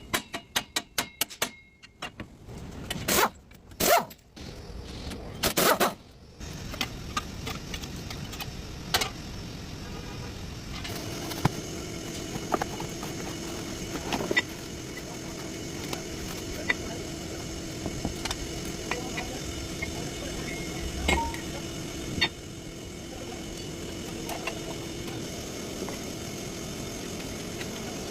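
A few clicks, knocks and a jangle, then from about six seconds a GMC truck running with a steady hum. A low held tone sounds within the hum from about eleven seconds and stops near twenty-five seconds.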